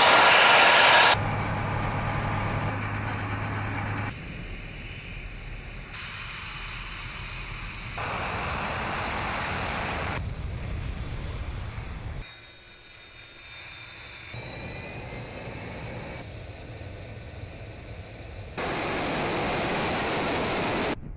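Military aircraft engines in a run of short clips, the sound changing abruptly every two to four seconds. It starts loudest with a Tu-95 bomber's contra-rotating turboprops at takeoff power. Jet engines of Su-24 and Su-25 strike jets on the runway follow, one stretch carrying a high steady turbine whine and the next a slightly rising whine.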